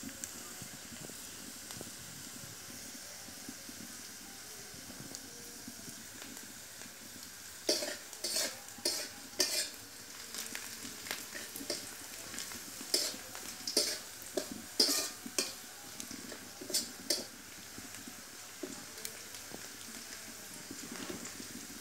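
Chopped onions sizzling in hot oil in a metal pan. From about eight seconds in, a metal spatula scrapes and knocks against the pan in irregular strokes as the onions are stirred.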